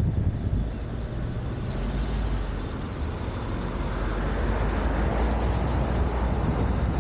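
Car driving on the road: a steady low engine and road rumble with wind rushing over the camera's microphone, the wind noise swelling about four seconds in.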